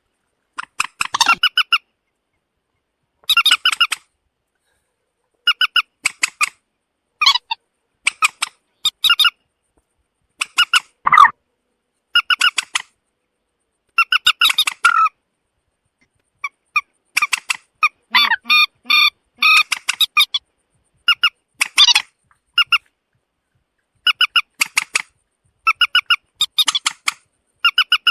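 Common moorhen calling: repeated clusters of short, harsh clucking notes, with dead silence between the clusters.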